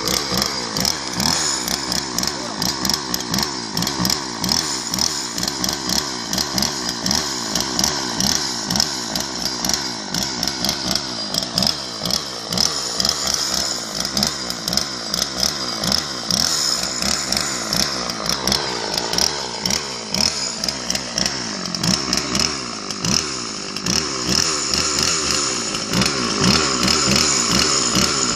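Two-stroke petrol chainsaw running steadily. Its engine note drops briefly a little over halfway through, then picks up again.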